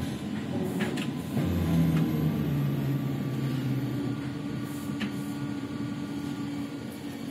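Ikarus-Ganz 280.94 trolleybus standing with its electrical auxiliary equipment running: a steady machine hum with a few light clicks about one second and five seconds in. A lower tone in the hum drops out about four seconds in.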